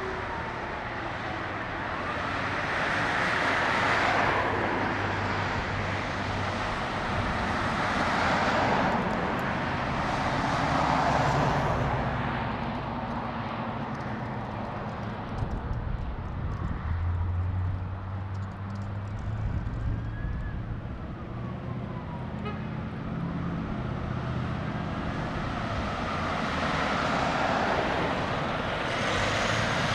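Road traffic noise as cars and trucks pass, swelling and fading as each vehicle goes by. Near the end an emergency siren's wail rises as a police cruiser approaches with its lights on.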